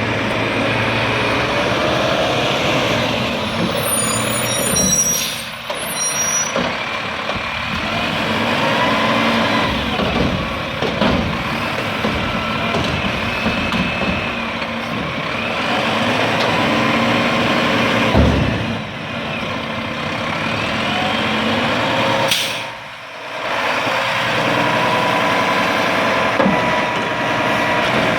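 Diesel garbage truck working, its engine revving up and down repeatedly as it drives the hydraulic packer, with rising and falling whines over the engine hum. The sound drops away briefly twice.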